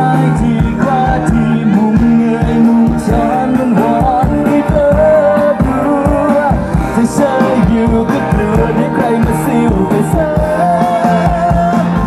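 Live band playing an upbeat pop-rock song, with a steady drum beat, keyboards and a sustained lead melody, and singing over it.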